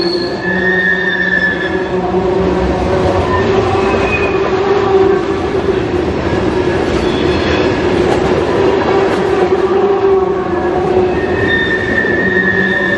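Freight train of tank cars rolling past at close range: a steady rumble of steel wheels on rail, with held squealing tones from the wheels that fade out a couple of seconds in and return near the end.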